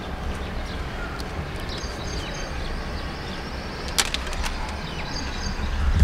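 Steady low outdoor rumble with an even background hiss, broken by a single sharp click about four seconds in.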